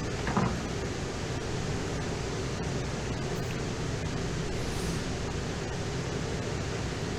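Steady rushing noise, with one short knock about a third of a second in.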